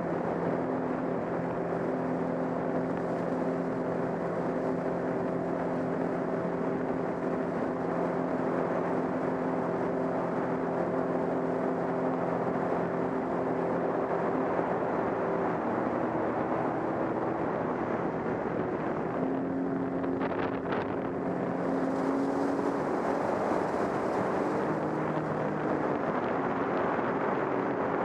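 Sea-Doo GTX 155 personal watercraft running fast, its engine droning at a steady pitch over the rush of jet spray and wind on the microphone. The engine pitch shifts a few times with the throttle, and a brief click comes about two-thirds of the way through.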